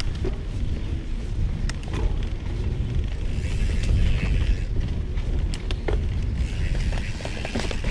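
Mountain bike riding over a dirt trail: a steady low rumble of wind on the microphone and tyres on dirt, with the bike's chain and parts rattling and clicking sharply throughout.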